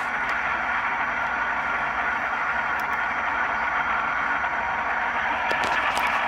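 Model ES44 locomotive's onboard sound decoder playing a GE GEVO diesel engine running under throttle through the model's small speaker, a steady rushing engine sound that grows a little louder near the end. Drive hold is on, so the engine sound rises with the throttle while the model stands still.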